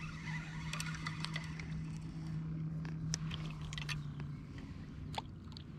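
Spinning reel and rod being handled to reel in and recast a slip-cork rig, with scattered light clicks and a sharper click about five seconds in. A steady low hum underneath stops about four seconds in.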